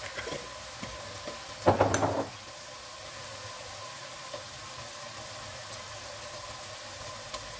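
Chopped onions, cumin seeds and bay leaves sizzling steadily in hot oil, with a brief louder burst of crackle about two seconds in.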